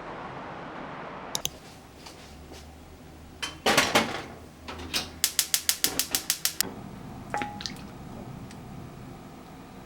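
Small objects handled up close: a click, then a rustling scrape, then a quick run of about ten sharp clicks lasting a second and a half, then a few fainter clicks.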